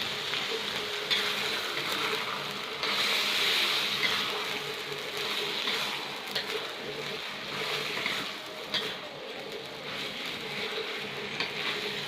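Chicken pieces sizzling as they fry in butter with onions and ginger garlic paste in a pot, a steady hiss with a few sharp clicks.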